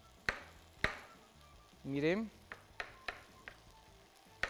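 Kitchen knife cutting a button mushroom into large cubes on a plastic cutting board: several sharp taps of the blade on the board, spaced irregularly.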